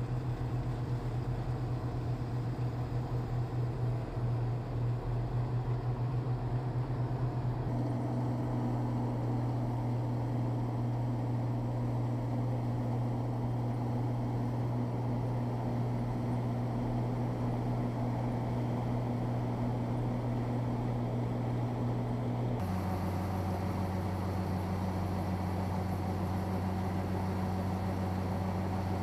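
Engine-driven machine running steadily with a low, even drone. The hum steps to a slightly different tone about eight seconds in and drops to a lower pitch about twenty-three seconds in.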